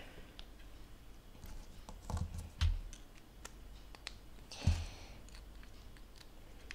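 Small plastic Lego Technic pieces clicking and rattling as they are handled and pressed together, with a few soft knocks, the loudest about two and a half seconds in and again near five seconds in.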